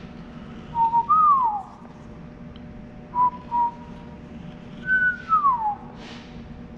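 A person whistling a few short sliding notes with pauses between: a swoop up and down about a second in, two short even notes near the middle, and a longer note falling away near the end.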